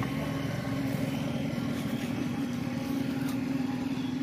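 An engine running steadily at a constant pitch, a low even hum with no revving.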